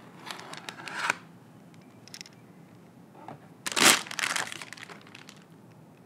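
Plastic anti-static bag around a motherboard crinkling as it is handled and lifted from its box: short crackling bursts in the first second, the loudest crackle about four seconds in, then trailing off.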